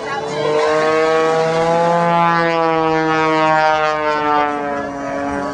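Aircraft engine droning as it flies past, a steady pitched note that rises slightly at first, then slowly falls.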